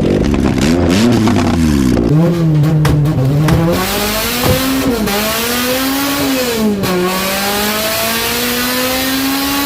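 Honda Civic's G23 VTEC four-cylinder engine revving, its pitch rising and falling several times and then holding higher and steadier over the last few seconds.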